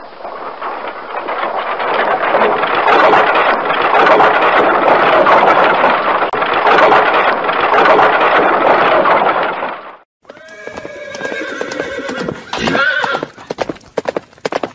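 Dense, steady clatter and din of a horseback cavalcade for about ten seconds, cut off suddenly. Then a horse whinnies, its call falling in pitch, and separate hoofbeats clop on the pavement near the end.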